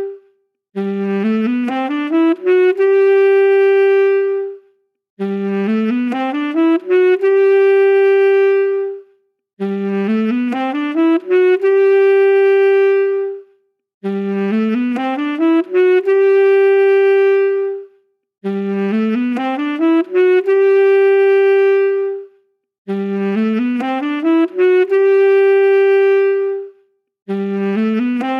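A solo saxophone plays the same short phrase over and over. Each time it is a quick rising run of notes that ends on a long held note, then a short break, repeating about every four and a half seconds, six times through and into a seventh.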